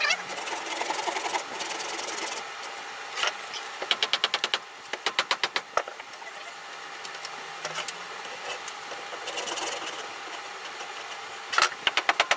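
Handsaw cutting a branch stub off a bark-covered horse chestnut log, rasping strokes at first. Then several short runs of fast, rattling strokes, the loudest near the end.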